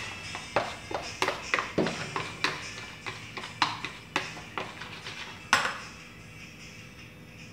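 Metal chopsticks stirring a thick grated-corn batter in a plastic bowl, clicking and knocking against the bowl and each other in an irregular run of taps. The taps stop with one louder knock about five and a half seconds in.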